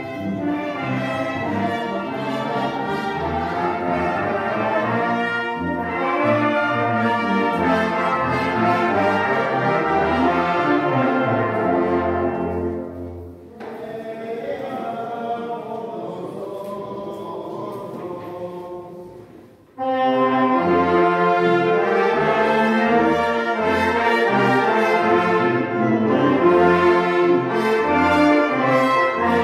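A brass band with tuba plays a tune, with a steady bass line under the horns. About 13 seconds in the music falls to a quieter passage, and about 20 seconds in it comes back loud all at once.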